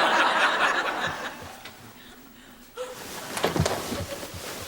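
Audience laughter after a sitcom punchline, loud at first and dying away within about two seconds.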